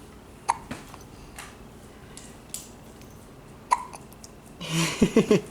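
A baby hiccuping: short sharp hiccups about half a second in and again near four seconds, with a brief voiced sound just before the end.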